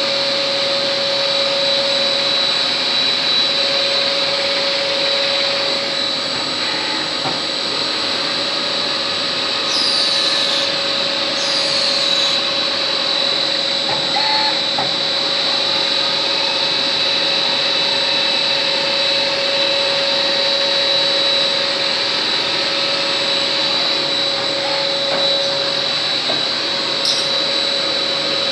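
MINI88 compact CNC automatic lathe running: a steady mechanical drone with a constant whine. Two short falling squeals come about ten and twelve seconds in.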